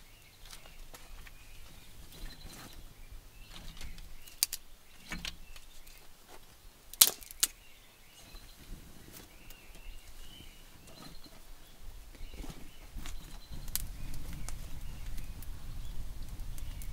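Dry sticks and twigs handled and snapped by hand, scattered clicks with two sharp cracks about seven seconds in, over faint birdsong. Near the end a low rumble of a wood fire burning joins in.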